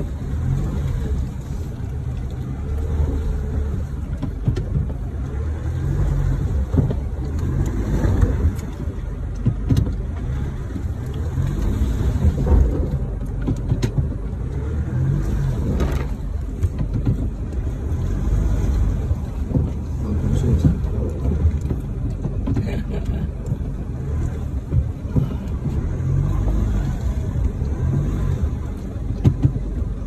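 Four-wheel-drive vehicle driving on a muddy track, heard from inside the cab: a steady low engine and road rumble with frequent short knocks and rattles.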